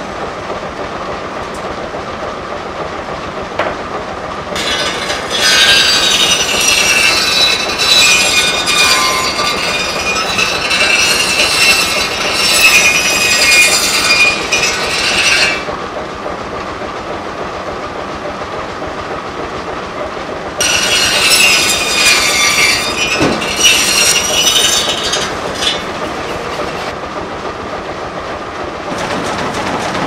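Steam-driven circular edger saw ripping the bark edges off boards: a shrill, singing whine of the blade in the wood a few seconds in, lasting about ten seconds, then again for about five seconds after a pause. Between cuts, the mill's belt-driven machinery keeps up a steady clattering rumble.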